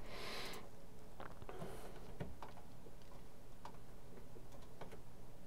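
Faint computer mouse clicks, about half a dozen scattered at uneven intervals, with a short soft hiss at the very start.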